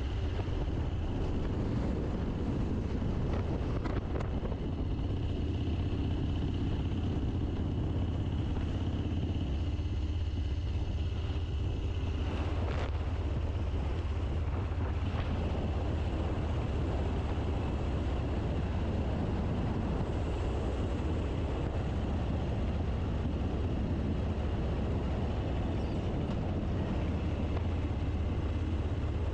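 Cruiser motorcycle engine running steadily while riding at a constant speed, with wind rushing over the handlebar-mounted camera's microphone.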